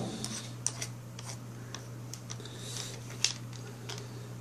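Scattered light clicks and taps of a cordless drill and a small bit being handled as the bit is fitted into the chuck, over a steady low hum.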